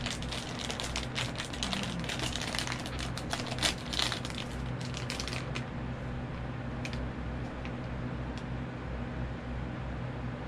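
Crinkling and crackling of a pink foil blind-box bag being handled and torn open, dense for the first five seconds or so, then only a few scattered clicks. A steady low hum runs underneath.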